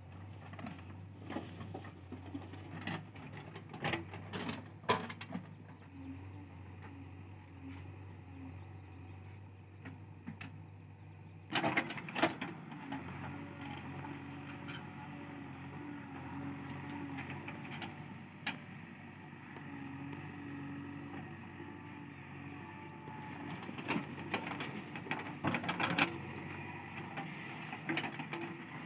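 Diesel engine of a JCB 3DX backhoe loader running under hydraulic load as the backhoe works earth, with scattered knocks and clatter of soil and stones from the bucket.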